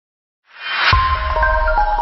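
Video-intro logo sting: after half a second of silence a whoosh swells up to a hit just before the one-second mark, then several held musical notes that step in pitch ring out over a deep bass.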